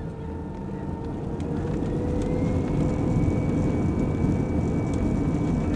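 Airbus A319 jet engines heard from inside the cabin, spooling up for takeoff. A steady whine creeps up in pitch while the rumble grows louder from about a second in.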